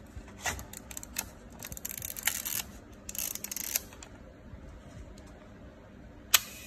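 Fujica GS645 Wide camera being operated by hand: a few small clicks and two short rasping stretches from its controls, then one sharp shutter click about six seconds in.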